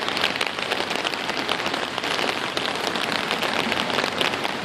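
Heavy rain coming down: a dense steady hiss, with many close drops ticking sharply.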